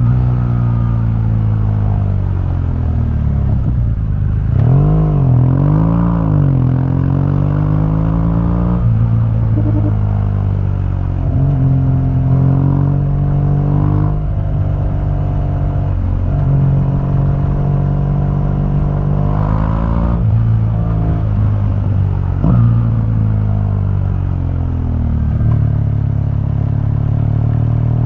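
A 2015 BMW R1200GS's boxer twin running through its stock exhaust under way, its pitch climbing as it accelerates and dropping suddenly at each upshift, several times.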